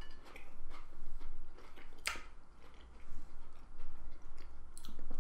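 A person chewing a mouthful of cheese and cracker with a few crunches and wet mouth clicks, one sharper click about two seconds in.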